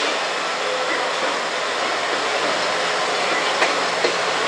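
KiHa 100 series diesel railcar running on the tracks, a steady mix of engine and rolling noise. Two sharp clacks come near the end.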